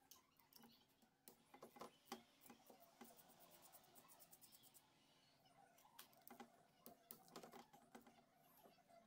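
Faint, irregular clicks and light knocks, scattered unevenly, a few close together in clusters.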